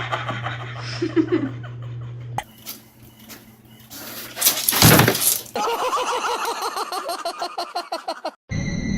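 A loud crash of something breaking, about five seconds in.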